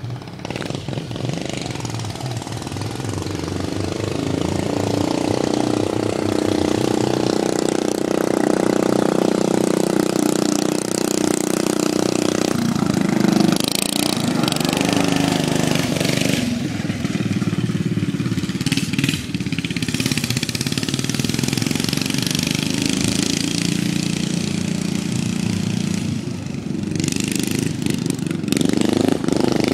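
Racing lawnmower's small replacement engine running hard, getting louder over the first several seconds and changing pitch with the throttle partway through and near the end.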